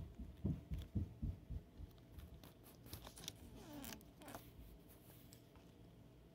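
Faint handling noise: a few soft bumps, then light plastic clicks and scrapes with one short falling squeak as a hand shifts markers in their holder.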